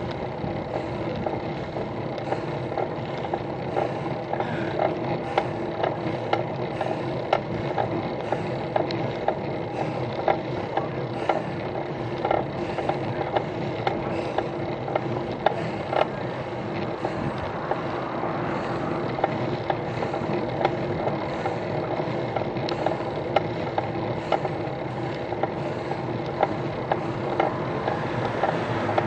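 Road bicycle climbing, heard through a camera mounted on the bike: a steady drone with irregular rattles and clicks from the bike and mount over the road surface.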